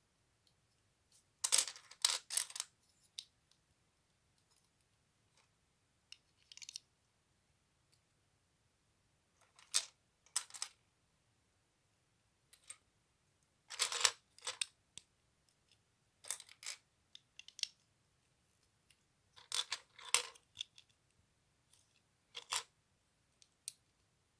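Plastic LEGO bricks clicking and clattering in short bursts every few seconds as pieces are picked out and pressed together during the build.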